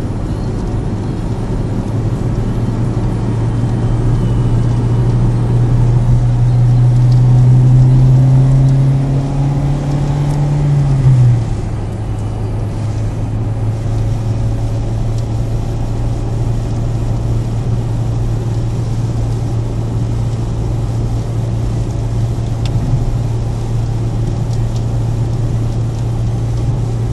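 Car engine and road noise heard from inside the cabin while driving. The engine hum climbs steadily for about eleven seconds as the car accelerates, then drops suddenly at an upshift and settles into a steady cruise.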